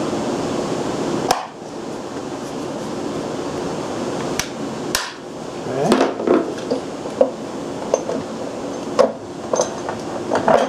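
Loose generator parts being handled and set down: a series of sharp knocks and clinks, most of them in the second half. A steady hum cuts off about a second in.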